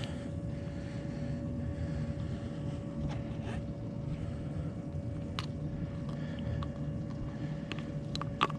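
A motor running steadily: a low rumble with a faint steady hum over it. A few light clicks and knocks come and go.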